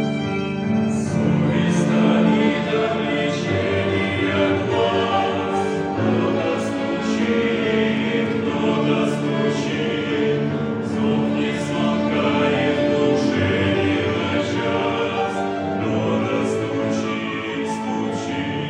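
A choir singing a song in many voices together, the sung words' consonants coming through crisply.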